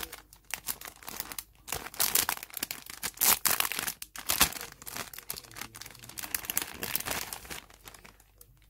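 Clear cellophane bag crinkling as hands open it and slide out a stack of paper tags, in irregular crackles that are loudest around the middle.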